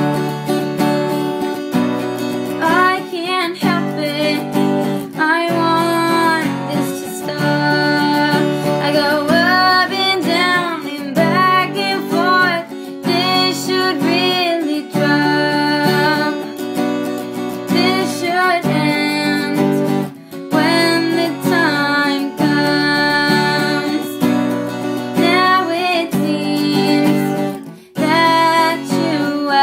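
Strummed acoustic guitar with a girl singing over it. The sound breaks off briefly twice in the second half.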